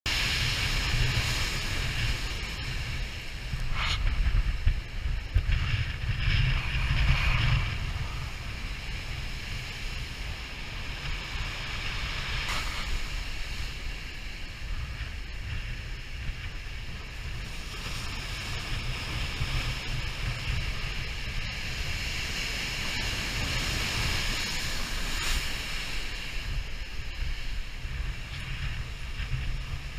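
Big ocean waves breaking and washing ashore in a continuous roar, with wind buffeting the microphone as a low rumble. Louder surges come a few seconds in.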